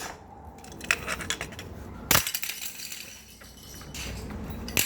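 Plastic body of an old Ave Habitat wall socket being forced and broken: a few small clicks, then a sharp loud crack about two seconds in, followed by rough scraping, and another sharp knock at the end.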